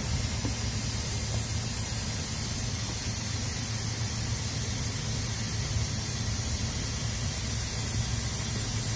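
Compressed-air suction gun hissing steadily as its tube sucks up leaked antifreeze pooled around the engine's thermostat housing.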